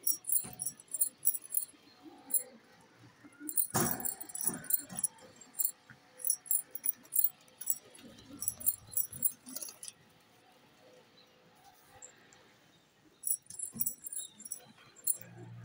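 Metallic jingling in short, irregular bursts, like keys or small bells shaken, with a pause of a few seconds about two-thirds through.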